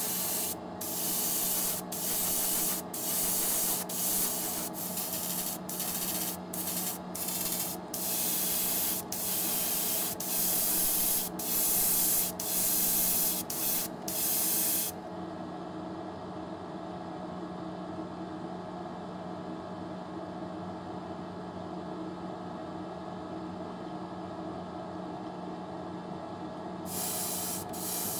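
GSI Creos Procon Boy airbrush spraying paint in short hissing bursts, a second or less each with brief pauses between, for about the first half, over a steady machine hum. The spraying stops for about twelve seconds, leaving only the hum, and starts again near the end.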